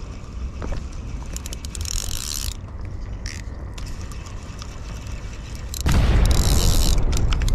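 Spinning reel being cranked against a heavy load on the line, its gears whirring and clicking. The noise gets much louder about six seconds in.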